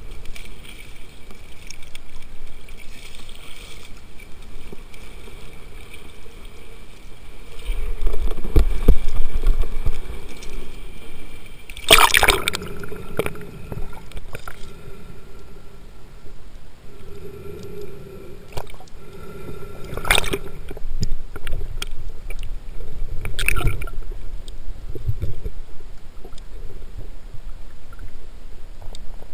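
Muffled water sound from a camera in a waterproof housing while spearfishing underwater: gurgling and sloshing, with a louder low rumble about a third of the way through and a few sharp knocks after it.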